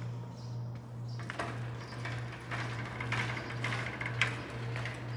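Steady low hum with scattered light clicks and brief rustling noises.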